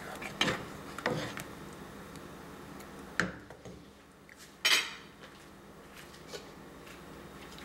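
A wooden spoon stirring thick soup in a large metal pot, knocking against the pot a few times in the first second and a half. A sharper knock comes about three seconds in, and a louder clatter of utensil on pot a little under five seconds in.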